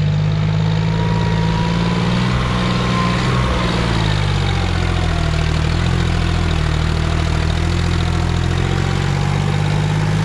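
A John Deere tractor's diesel engine pulling a trolley loaded with soil. It runs steadily; its note drops a little around the middle and climbs again toward the end.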